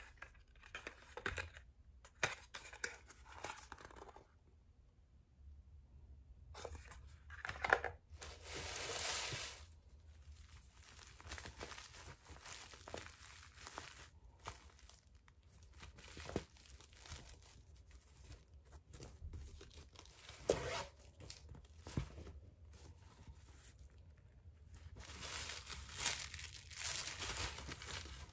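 Paper packaging and shredded paper filler rustling and crinkling as a woven straw pouch is lifted out of its box and handled, in irregular bursts with a few sharp taps among them.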